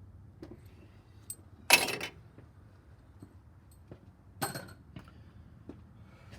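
Two sharp metallic clanks, about 1.7 and 4.4 seconds in, each ringing briefly, with a few faint ticks between: steel tools or parts being handled and set down.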